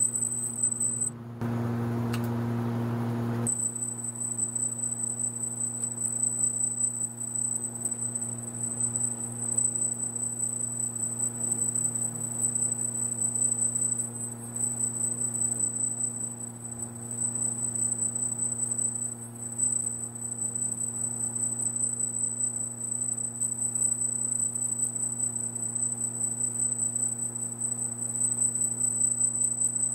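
Laser marking machine running while it engraves a metal plate: a steady high-pitched whine over a low electrical hum, broken by a louder hiss for about two seconds shortly after the start.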